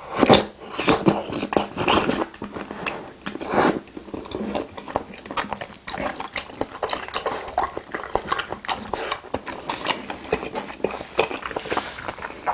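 Close-miked chewing of spicy braised seafood: wet smacking and squishy clicks, with a few louder bites in the first four seconds.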